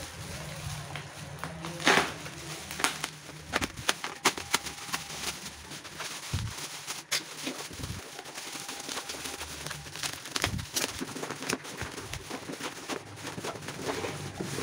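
Plastic parcel wrapping crinkling and rustling as it is pulled open by hand, with many irregular sharp crackles.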